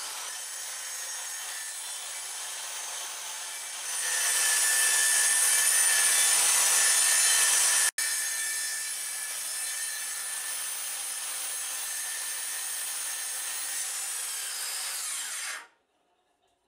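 Handheld electric circular saw ripping lengthwise through a thick oak plank. The motor and blade cut steadily, louder for a few seconds in the middle, then the motor winds down and stops near the end.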